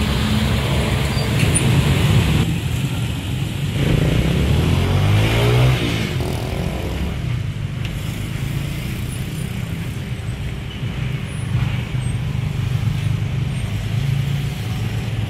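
Road traffic at a busy junction: cars and motorcycles running past with a steady rumble. About four to six seconds in, one vehicle's engine rises in pitch as it accelerates away.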